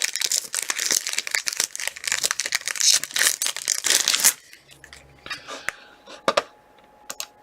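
Trading card pack wrapper being torn open and crinkled, a dense crackling that stops about four seconds in, followed by a few light clicks of cards being handled.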